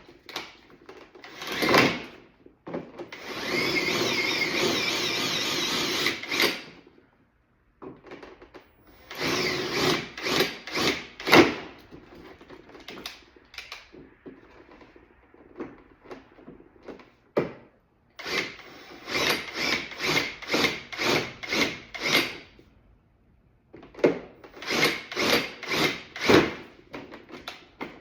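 Power drill drilling out the rivets in a door panel: one steady run of about three seconds, then many short trigger bursts in quick clusters with pauses between.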